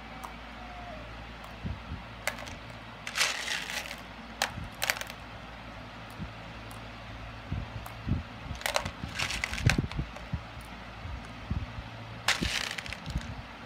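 Small metallic-finish craft beads clicking and rattling as they are picked up and set into place by hand, in four short bursts.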